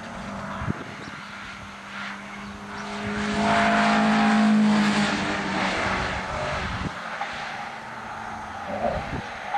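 Toyota MR2 (SW20) with a BEAMS 3S-GE four-cylinder engine driving past at speed on a race track. The engine note grows louder, is loudest about four seconds in, then fades as the car pulls away.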